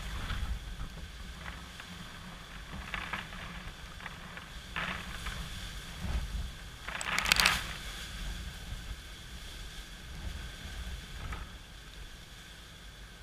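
Gusty storm wind buffeting the microphone as a low rumble, swelling and easing in gusts, with the strongest gust about seven seconds in.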